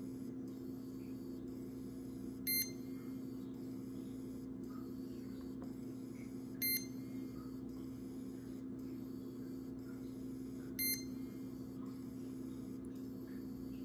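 A short, high electronic beep repeating about every four seconds, three times, over a steady low electrical hum.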